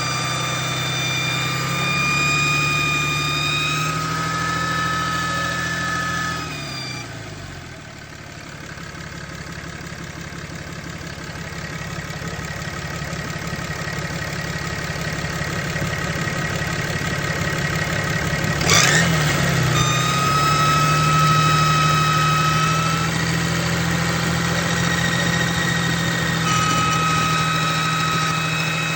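6.7 Cummins inline-six turbo-diesel engine running with a high-pitched whistling whine over it. The whine fades out about seven seconds in, as the engine note falls away, and returns strongly after a short sharp noise about nineteen seconds in. The owner doesn't know what the whine is and links it to the turbo.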